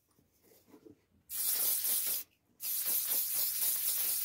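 Lacquer being sprayed in two hissing bursts: a short one beginning about a second in, then after a brief pause a longer one that carries on to the end. This is a finishing coat of lacquer going onto a repaired boot heel.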